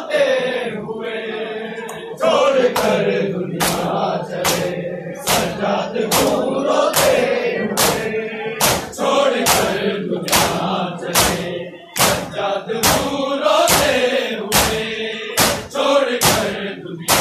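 A crowd of mourners chanting a noha in unison, keeping time with loud, sharp slaps of matam chest-beating, a little more than one a second.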